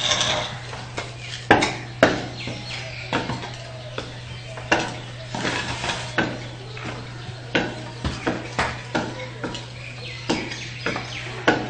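Bamboo stilts clacking on a concrete floor as a man walks on them, an uneven knock every half second to second with each step.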